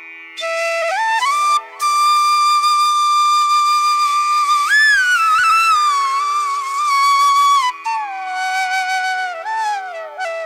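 Flute music playing a slow melody of long held notes that slide and bend between pitches.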